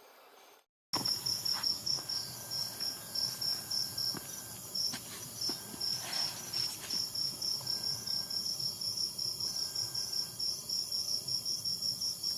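Crickets chirping in a steady, even pulse, about three chirps a second. The sound starts abruptly about a second in, after a brief silent gap.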